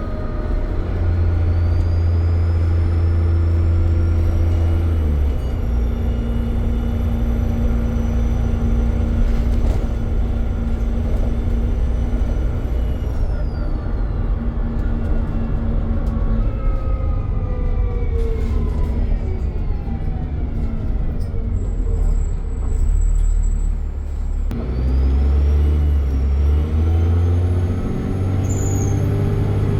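Dennis Trident double-decker bus engine pulling hard with a high turbo whistle over the engine note. About halfway through it eases off and the whistle and engine pitch fall away. Near the end the bus pulls away again and the whistle rises once more.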